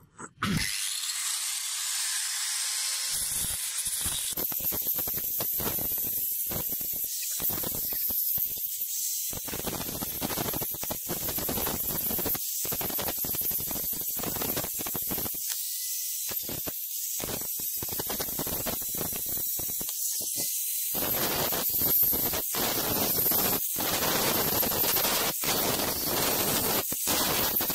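Angle grinder with an abrasive disc grinding along a hammer's metal handle. It makes a steady, high-pitched grinding noise that starts about half a second in.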